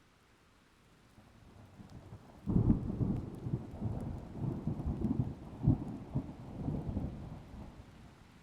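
Thunder: a low rumble builds about a second in and breaks into a loud crack about two and a half seconds in. It then rolls on in a run of low peaks and fades near the end, over a faint hiss of rain.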